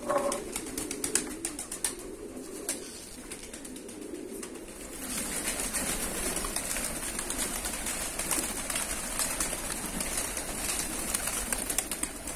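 A flock of domestic fighting pigeons, cooing softly at first. From about five seconds in, many wings flap and rustle as more birds fly down and crowd together.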